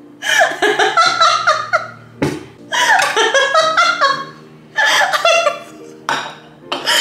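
A woman laughing hard in four bouts, the longest in the first two seconds, with short pauses for breath between them.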